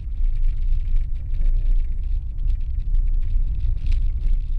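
Low, steady rumble of a car driving over a block-paved street, heard from inside the car, with many small knocks and rattles from the tyres on the paving stones.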